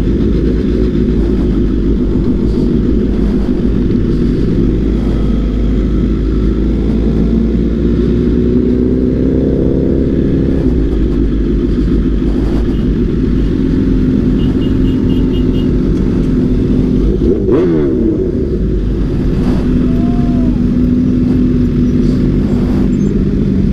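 Supercharged inline-four engine of a 2020 Kawasaki Z H2 with an SC Project CRT exhaust and Akrapovic headers, running at low speed in a slow line of motorcycles, its pitch climbing briefly about eight seconds in and rising and falling quickly with a throttle blip near seventeen seconds.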